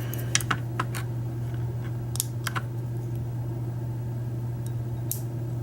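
Small sharp metallic clicks and taps, a cluster in the first second and a few more later, as the padlock's driver pins and springs are worked out of the lock body, over a steady low hum.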